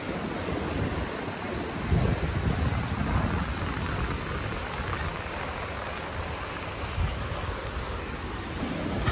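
Wind buffeting the microphone in gusts, over a steady rush of sea surf.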